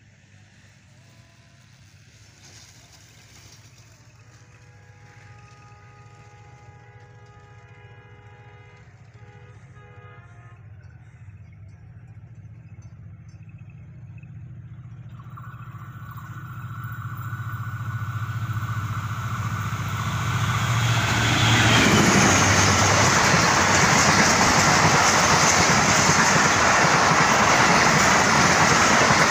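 Diesel-hauled passenger express approaching from far off and passing close by. The low drone of the locomotive builds steadily, and a long, steady horn sounds in the distance early on. From about three quarters of the way through, the passing coaches' wheels rumble loudly on the rails.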